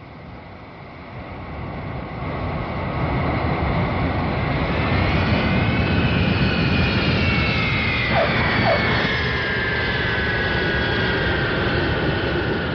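Jet aircraft flying past: a rumble that builds over the first few seconds, with a high engine whine that climbs and then slides down in pitch as it goes by.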